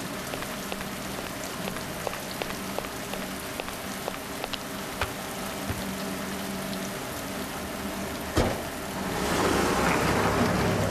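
Steady rain falling, with scattered drop ticks and a faint low hum underneath. A car door shuts with a single knock about eight seconds in, and the noise then swells toward the end.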